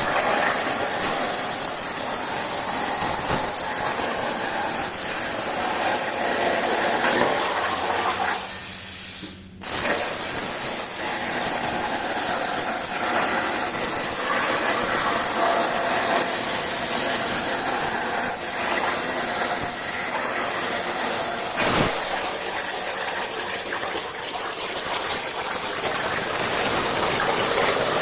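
Hypertherm 85 plasma cutter with a mini machine torch, its arc hissing steadily as it cuts quarter-inch plate on a CNC table. The arc cuts out for about a second roughly a third of the way in, then restarts abruptly and carries on cutting; there is a brief sharp crack about three-quarters of the way through.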